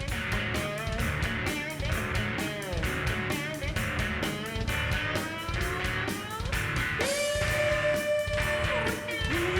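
Music: a guitar playing bending, sliding lead notes over a steady beat.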